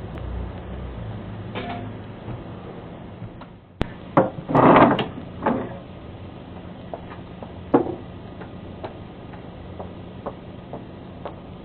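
Knocks and a short clatter of porch items being handled and moved, the loudest about four to five seconds in, with scattered light ticks around them. Heard through a doorbell camera's narrow-band microphone over a low hum.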